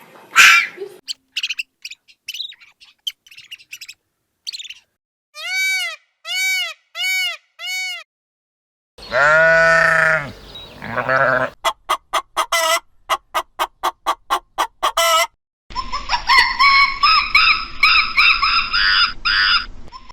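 A run of different animal calls played one after another: four short arched calls, a longer call, a fast train of clicks, and a dense chattering call near the end.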